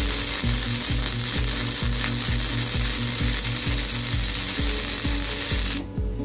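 Gasless flux-core MIG welder arc crackling and sizzling steadily while running a bead, cutting off suddenly near the end as the trigger is released. Background music with a steady beat runs underneath.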